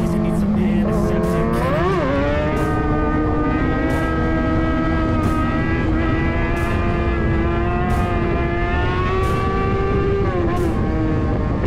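Kawasaki Ninja sportbike's inline-four engine running at high, fairly steady revs under way, over a rush of road and air noise. The pitch dips briefly about two seconds in, climbs slowly, and drops again near the end.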